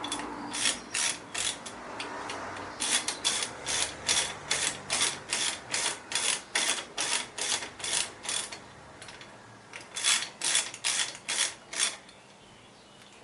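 Hand ratchet clicking as it is swung back and forth to snug down a fastener on the engine, about three clicks a second in three runs with short pauses between.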